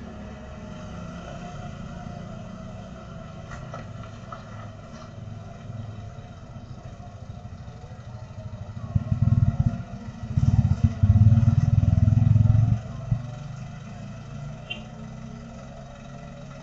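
Motor vehicle engines on a narrow road, heard through a CCTV camera's microphone: a steady low engine rumble, with louder, rough engine noise from about nine to thirteen seconds in as vehicles pass close by.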